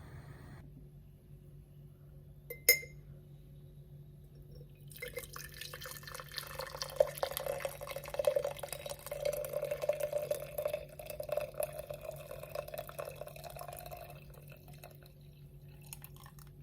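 A single glassy clink, then liquid poured steadily into a glass vessel for about ten seconds before it tails off.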